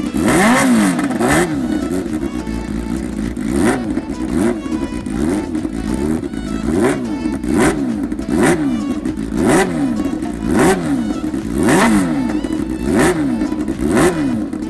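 Kawasaki H2R's supercharged 998cc inline-four, revved over and over on a stand, its pitch rising and falling in repeated throttle blips about once a second.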